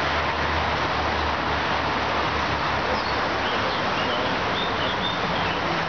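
Steady outdoor background noise with a vehicle engine idling low, fading out about two seconds in, and a few faint bird chirps about three to five seconds in.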